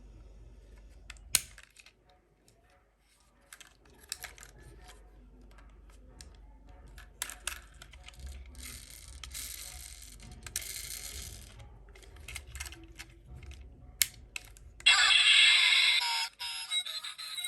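Toy minicars being handled: scattered clicks and clatter of small hard toy parts. Near the end comes a louder rushing rattle lasting about a second and a half.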